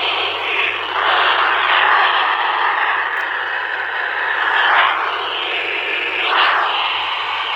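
FM receiver hiss and static from a TYT TH-UV8000D handheld transceiver as the AO91 satellite signal fades out. The noise swells louder a few times, rising most between about one and five seconds in and again near the end.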